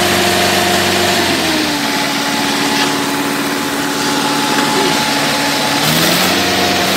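Mahindra 575 DI tractor's four-cylinder diesel engine working under load, pulling a loaded sugarcane trolley through a wet field. About a second and a half in its note drops as the engine lugs down, and it picks back up near the end.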